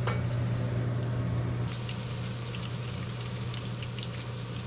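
Jerusalem artichoke slices deep-frying in hot oil in a steel pot, the oil bubbling and sizzling steadily, over a steady low hum.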